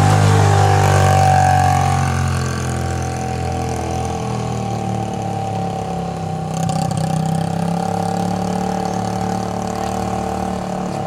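Motorcycle engine running steadily, louder for the first two seconds and then settling to an even idle.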